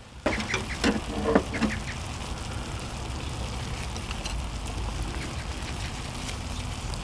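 Makchang (pork large intestine) sizzling on a hot griddle, a steady crackling hiss, with a few chopstick clicks and short mouth sounds in the first second or two.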